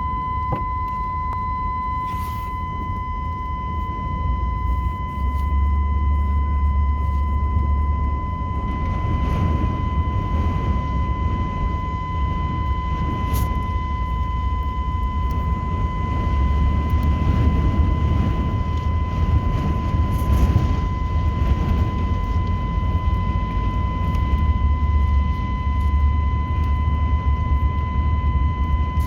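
Gale-force wind roaring and buffeting the microphone in gusts, with a deep rumble that swells and eases several times. A steady high-pitched whine sounds over it.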